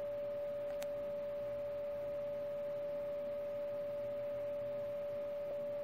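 A steady electronic tone at one unchanging pitch, a constant whine, with a faint click about a second in.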